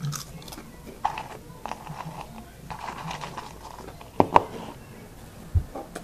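Crunchy cheese snacks being chewed close to the microphone, with scattered crackly crunches. A couple of sharp clicks about four seconds in are the loudest sounds, and a low thump comes near the end.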